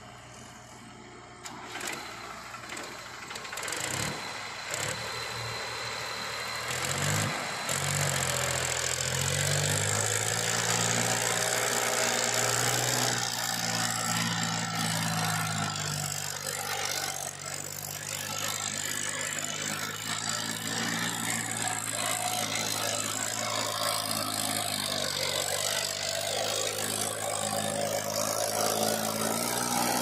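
Powertrac 434 DS Plus tractor's diesel engine pulling a trailer loaded with sand through soft, rutted ground. Its note comes up about seven seconds in, then runs steady under load.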